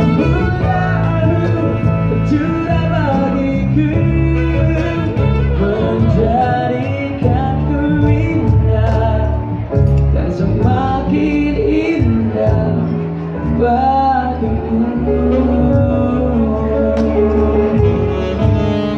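Live band music: a male singer sings a slow ballad, accompanied by the band.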